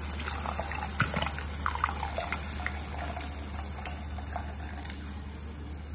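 Water poured from a steel bowl into a pot of thin yogurt and flour mixture, a steady pour with small splashes.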